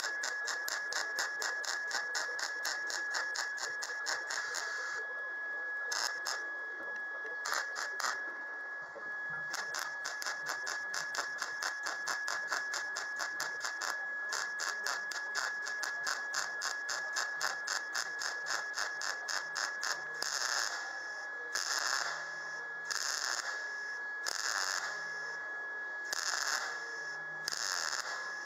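MIG welder arc crackling on thin steel panel as the edge of a patch is stitch-welded in rapid pulses, about five a second, with a short pause in the middle. In the last third it comes as separate short welding bursts about a second and a half apart.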